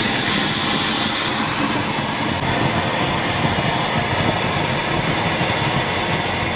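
Firecracker burning with a steady, rushing hiss.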